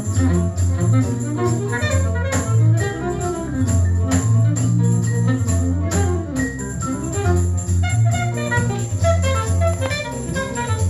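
Recorded music played from a McIntosh MTI100 integrated turntable through a pair of B&W 804 floor-standing loudspeakers, heard in the listening room, with a prominent bass line moving in steady notes.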